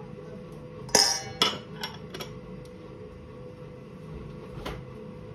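A metal spoon clinking against a stainless steel bowl: two sharp, ringing clinks about a second in, a few lighter taps after them, and one more clink near the end, over a faint steady hum.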